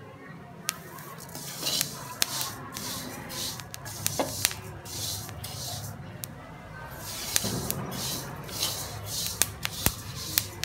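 Flaxseeds dry-roasting in a pan and stirred with a wooden spatula: the seeds swish and hiss as they are pushed around, with scattered sharp crackles as they begin to pop. This crackling is the sign that the seeds are drying out and roasting, not yet at the full steady crackle of a finished roast.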